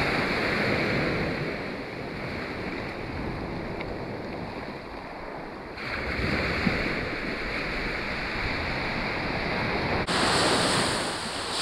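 Sea surf washing steadily onto the beach, with wind rushing over the microphone; the noise jumps louder suddenly about six seconds in and again about ten seconds in.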